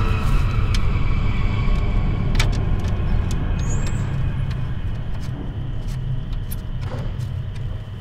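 Steady low rumble of a motor vehicle running, easing slightly toward the end, with scattered light clicks and taps over it.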